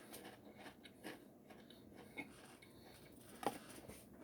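Faint, irregular crunching of a Pringles potato crisp being chewed, with one sharper crunch about three and a half seconds in.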